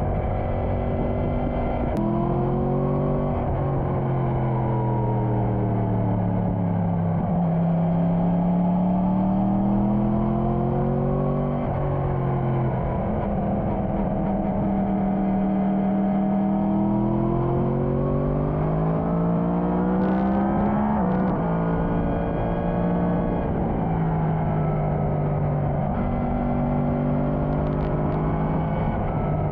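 Motorcycle engine under way, its pitch climbing under acceleration and easing off, with sudden drops at gear changes about twelve and twenty-one seconds in, over steady wind and road noise.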